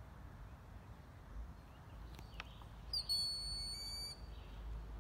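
Recorded broad-winged hawk call played through a phone speaker from a bird app: one high, thin whistle with a short rising start, about three seconds in, lasting about a second.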